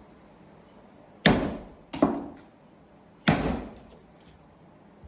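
Three heavy impact thuds from wall demolition, the framing being smashed out. The first two come close together and the third about a second later, each with a short fading rattle.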